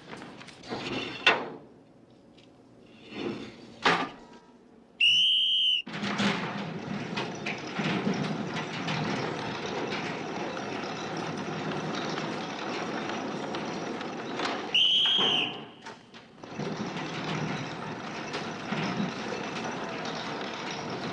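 Prison gate sounds: a few sharp metal clanks, then a short electric buzzer followed by a long, steady rumble of a heavy sliding gate rolling. The buzzer sounds a second time about ten seconds later, and the rolling rumble starts again.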